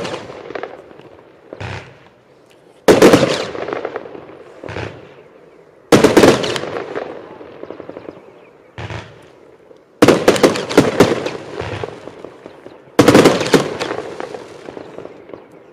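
Compound firework cake (Evolution Fireworks Acatenango, 25 mm shots) heard from about 85 m away, firing in volleys. Several sharp bangs are each followed by a dense run of rapid cracks that trails off. The biggest volleys come about every three to four seconds.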